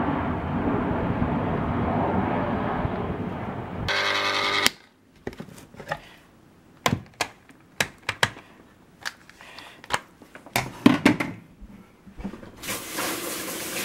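Jet airliner engine noise from a plane on landing approach, cut off suddenly after about four seconds. A brief whir follows, then a string of sharp plastic clicks and knocks as the motor head and lid of a small countertop ice cream maker are handled, with a noisy rush near the end.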